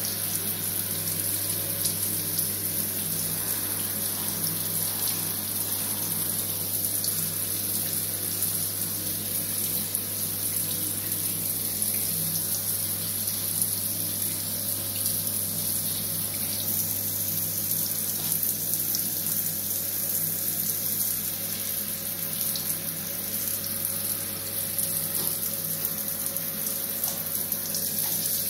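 Shower water running steadily onto a tiled shower floor and a wet dog being bathed, a constant hiss with a steady low hum underneath.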